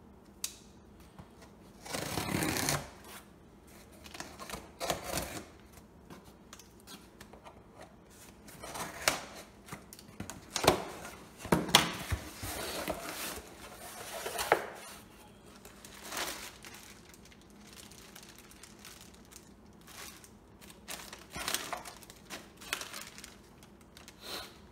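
A cardboard parcel being opened by hand: packing tape cut with a folding multitool, the box flaps pulled open, then crumpled packing paper and plastic parts bags rustling and crinkling. The sound comes as irregular scrapes, clicks and rustles.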